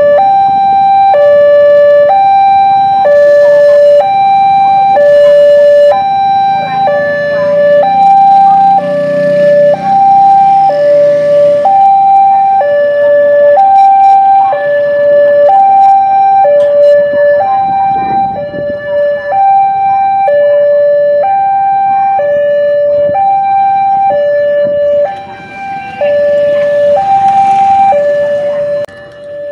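Railway level-crossing warning alarm: an electronic two-tone signal alternating evenly between a high and a low tone about once a second, warning that a train is approaching.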